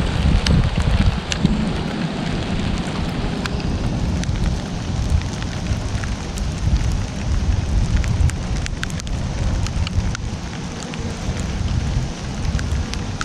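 Steady rain falling, with many sharp raindrop ticks landing close by, over a low rumble.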